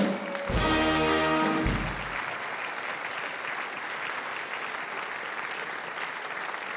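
Audience applauding, with a short held chord from the band about half a second in that lasts about a second: a Tusch marking the punchline. The chord is the loudest part, and the clapping carries on steadily after it.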